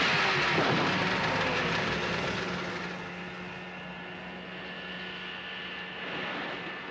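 Speedboat engine whining, its pitch falling as the boat flies over, with a crash as it comes down on a car about half a second in. The engine then runs on steadily and fades as the boat speeds away.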